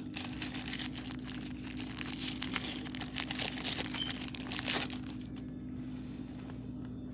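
Plastic packaging crinkling and tearing as a power bank is unwrapped, a dense crackle for about five seconds that then stops. A low steady hum runs underneath.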